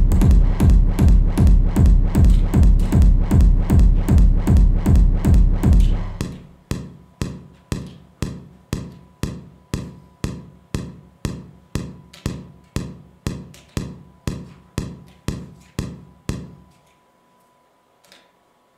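Electronic techno from a drum machine and synthesizers: a steady kick-drum and bass beat at about two beats a second with hi-hats above. About six seconds in the kick and bass drop out, leaving a thinner percussion pattern over a held tone. That fades away near the end, leaving near silence.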